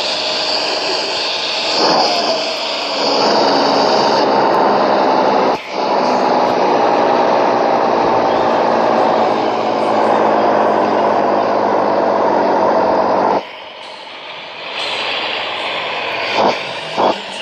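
A motor vehicle's engine running loudly and steadily. It dips briefly about five and a half seconds in and drops off sharply near the end, followed by a few short knocks.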